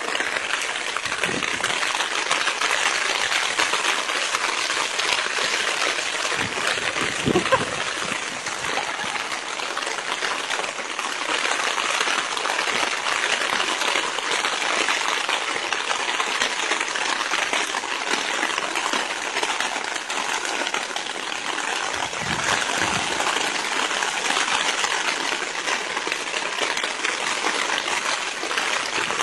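Floodwater rushing, a steady, unbroken gushing of water.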